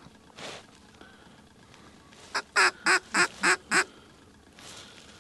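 Hand-blown mallard duck call sounding a quick run of about six quacks, each dropping in pitch, about two seconds in.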